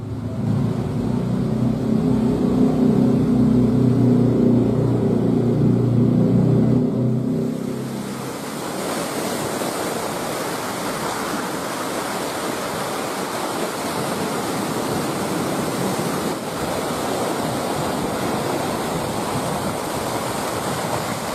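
A boat engine runs with a steady hum for about the first eight seconds, then fades out. After that a steady rush of wind and waves takes over.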